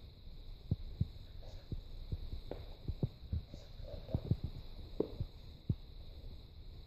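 Capybara chewing: soft, irregular low clicks and thumps of its jaws and teeth.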